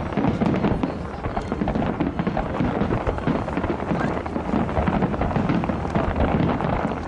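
A dense fireworks barrage: many bursts and crackles come close together in an unbroken stream, over a steady low rumble.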